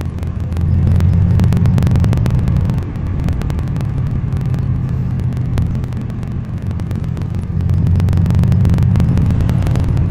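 Mercedes-AMG C63's V8 biturbo rumbling low as the car moves, with rapid clicks and squeaks from the rear axle. The owner suspects the brakes, since it squeaks in time with the wheel. The sound swells about half a second in and again near the end.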